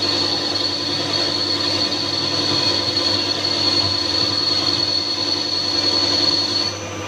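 Wintec TC15 CNC lathe running, with a steady high-pitched whine over a lower hum; the whine cuts off near the end.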